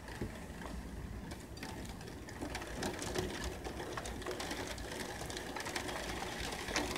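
Rain falling, with many small irregular ticks of drops and drips, heard from indoors behind a rain-spattered window.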